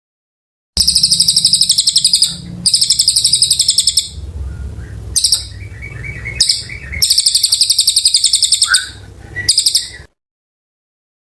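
A cililin songbird singing a long, rapid, high-pitched song of quickly repeated notes, about eight a second, in several phrases with short breaks. A low rumble runs underneath. The song starts abruptly about a second in and cuts off near the end.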